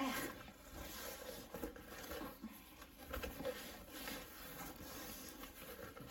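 Cardboard box rustling and scraping as a boxed set of glass food containers is tugged and worked out of its tight packaging.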